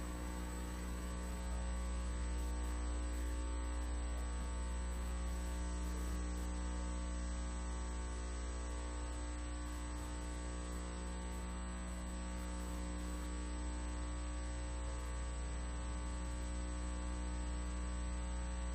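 Steady electrical mains hum from the audio system, a constant low buzz with a stack of even overtones and a faint high steady whine above it.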